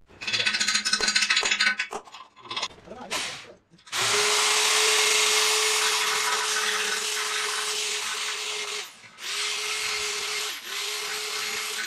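Power drill boring into a broken steel bolt in a scooter's engine casing: a steady motor whine with a grinding hiss. It stops for a moment about nine seconds in and then runs on. A louder, rougher burst comes in the first two seconds.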